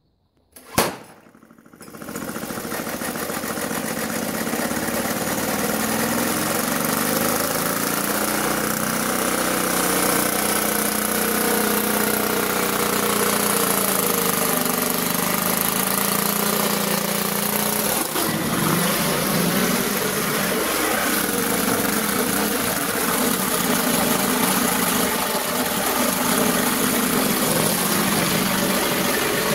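A reel lawn mower's small petrol engine, here running on hydrogen gas from a small bottle, starts about a second in and then runs steadily while cutting grass.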